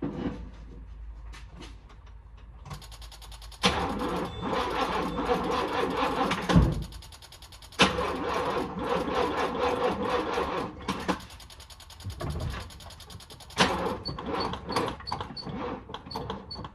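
Box Chevy's starter cranking the engine in several tries of about three seconds each, with short pauses between, without the engine catching. The owner blames a weak battery.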